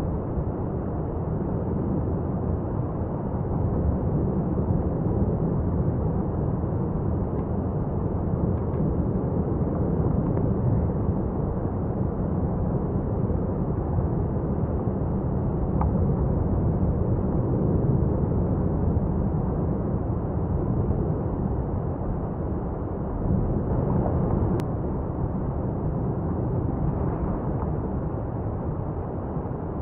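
Etna's South-East crater erupting: a continuous low rumble, heaviest in the bass, with a few faint ticks and one sharp click near the end.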